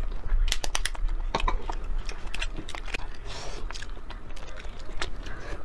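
Shell of a boiled egg being cracked and picked off by hand: a quick run of sharp, crisp crackles in the first half, then scattered clicks.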